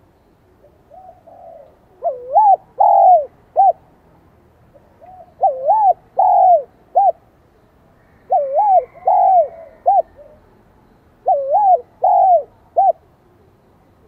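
Spotted dove cooing in a high-pitched 'son' voice. Four phrases come about three seconds apart, each a soft lead-in note followed by three quick rising-and-falling coos, the last of them short.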